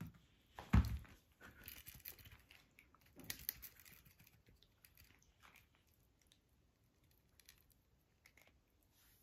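A cat wrestling with a feather wand toy on a rug: a thump about a second in, then rustling, scratching and scuffing of claws and fur on the rug and feathers as it grabs, kicks and bites the toy.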